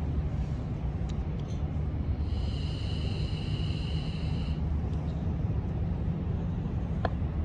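Steady low outdoor rumble, with a high, steady whistle-like tone that lasts about two seconds in the middle.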